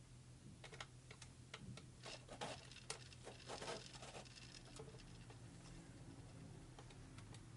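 Faint, scattered light clicks of small lock pins being handled and set down on a tray, mostly in the first four seconds or so.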